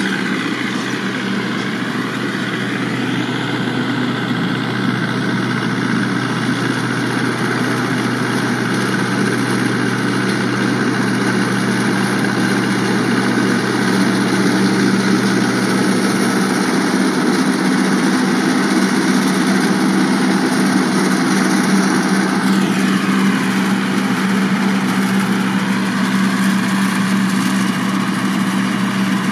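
Tractor engine running steadily under load, driving a straw chopper that is chopping stubble and blowing it into a trolley; a continuous drone with a noisy rush over it, a little louder through the middle as the rig passes closer.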